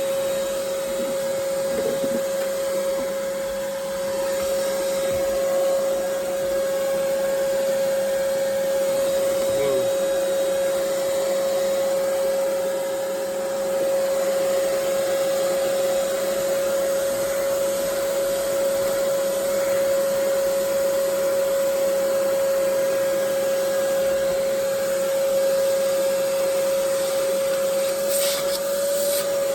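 Ridgid 3-gallon wet/dry shop vac running steadily with a constant high whine over the rush of air, vacuuming a car floor; a brief rattle and a slight wobble in pitch come near the end.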